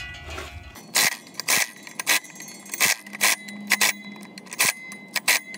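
Impact wrench hammering in about eight short bursts as it runs flywheel bolts down onto the crankshaft in a star pattern, a few quick hits per bolt to reach roughly 73 foot-pounds by feel instead of with a torque wrench.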